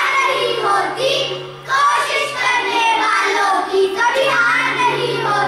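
A group of children chanting a Hindi poem together in a sing-song voice.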